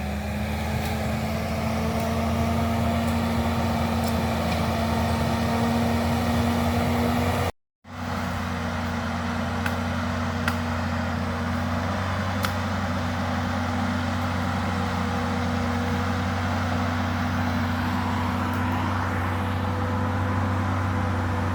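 Large farm tractor's engine running steadily at constant speed. Its sound cuts out for an instant about eight seconds in.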